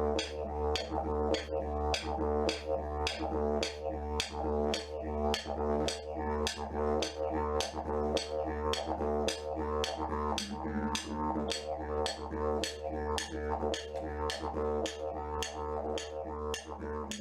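Didgeridoo music: a steady low drone with a sharp percussive tap about twice a second.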